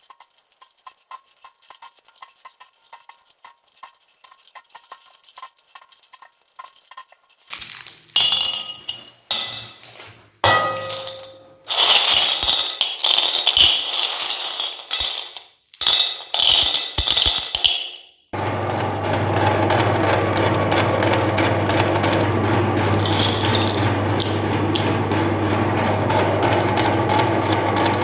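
Faint rapid ticking, then loud, abrupt bursts of handling clatter and clinks, then, about 18 seconds in, an electric meat grinder's motor starts and runs steadily with a low hum.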